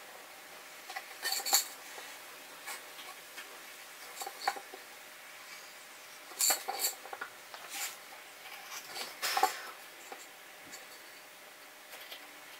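Nessmuk knife blade cutting and scraping into a willow spoon blank, hollowing out the spoon's bowl: short, irregular strokes in small clusters, loudest about a second and a half in and again near nine and a half seconds.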